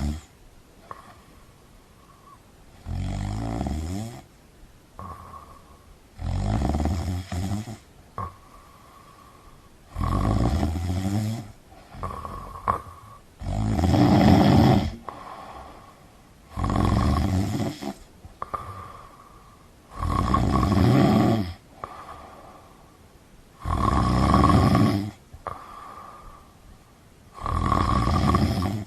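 A sleeper snoring at an even pace: eight loud snores, about one every three and a half seconds, each lasting a second or so, with quiet gaps between.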